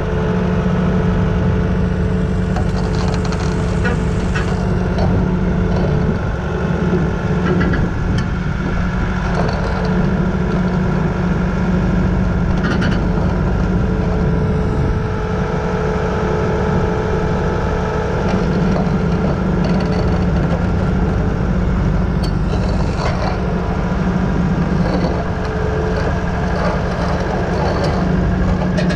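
Komatsu crawler dozer's diesel engine running steadily as the machine crawls slowly up onto a lowboy trailer deck, with occasional clanks from its steel tracks.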